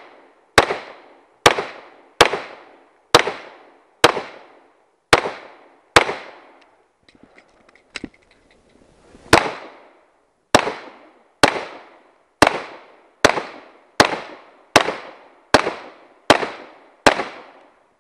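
Pistol fired in a steady string, about one shot a second, each report trailing off in a short echo. Seven shots, a pause of about three seconds with a few faint clicks, then ten more shots.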